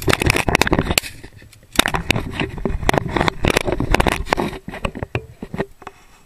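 Dry grass and dead weed stalks crackling and scraping against the camera as the wearer pushes through standing brush, with footsteps in it. The crackling is dense and uneven, eases briefly about a second in, and fades near the end.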